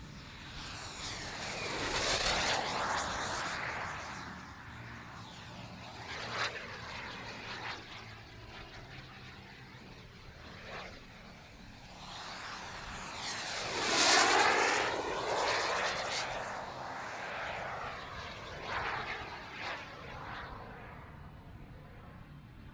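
A JetCat P180 turbine on a large model glider making two fast passes. Its high whine and the rush of air swell and fade as it goes by, with the whine dropping in pitch at each pass: once about two seconds in, and louder about fourteen seconds in.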